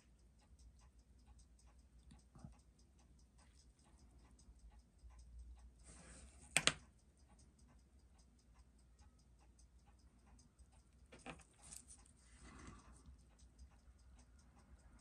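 Seiko 6309 automatic watch movement ticking faintly and evenly at 21,600 beats per hour, six beats a second, while it is regulated on a timegrapher to about zero seconds a day with near-zero beat error. One sharp louder click comes a little under halfway through, and a few softer knocks follow later.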